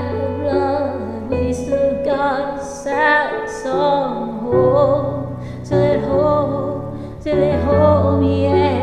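A woman singing long held notes with vibrato over a karaoke backing track of sustained low chords.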